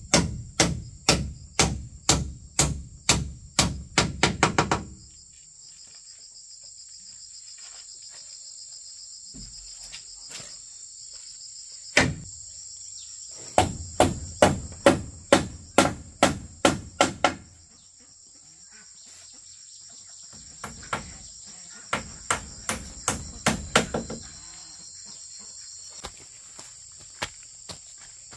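Hammering in three runs of quick, sharp blows, about two to three a second, with pauses between. Throughout, a steady high insect chorus of crickets or cicadas.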